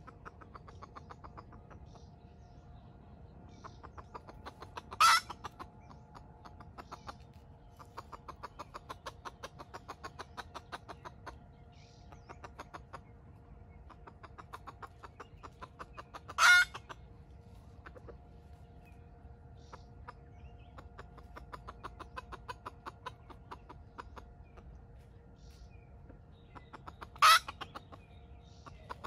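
Red junglefowl, wild jungle chickens, calling: three short, loud calls about eleven seconds apart. Underneath runs a steady high hum with long runs of fast ticking.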